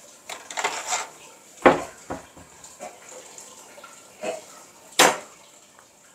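Kitchen utensils clattering and knocking on a work surface. There is a short rattle at the start, then a few separate sharp knocks, the loudest about five seconds in.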